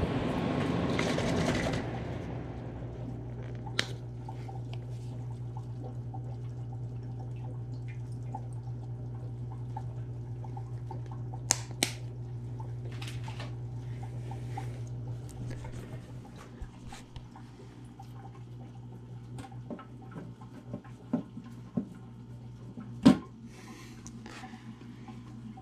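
Small aquarium water pump humming steadily under trickling water, with a brief rush of water in the first couple of seconds. The hum fades about fifteen seconds in, and a few sharp clicks or taps come through, the loudest near the end.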